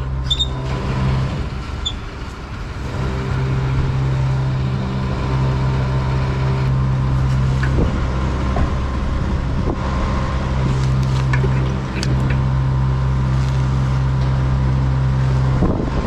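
Petrol station fuel dispenser humming steadily while fuel is pumped into a motorcycle's tank. The hum dips briefly early on and stops near the end, as the fill finishes and the nozzle goes back on the pump.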